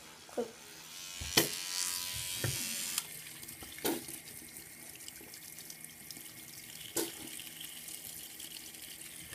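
Bathroom tap running into a sink: a strong rush of water a little over a second in, settling to a steadier stream that stops at the end, with a few sharp knocks along the way.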